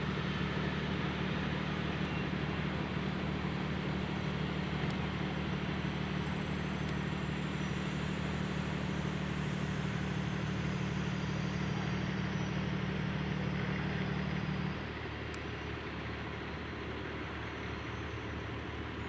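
Airbus H135 helicopter's engines winding down: a faint high whine slowly falls in pitch over a steady low mechanical hum. The hum cuts off suddenly about 15 seconds in.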